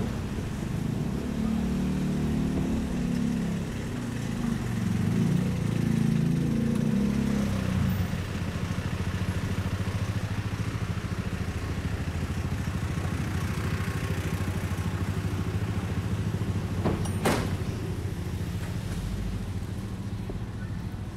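Street traffic: a motor vehicle's engine passes close for the first eight seconds or so, then a steady low traffic rumble continues. A single sharp click comes about seventeen seconds in.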